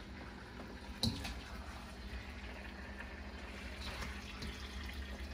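Metal tongs clinking and scraping in a wok as braised chicken wings are lifted out onto a plate, with one sharp clink about a second in and fainter ticks after.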